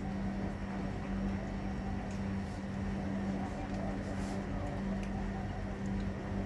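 A steady low machine hum that holds one pitch throughout, with a faint high tone above it and a few faint ticks.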